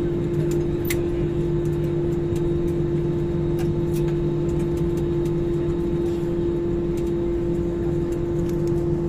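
Airbus A320 cabin noise on the ground after landing: a steady hum of engines and airflow with a constant droning tone, and light clicks and rattles from the cabin as the jet rolls along the runway.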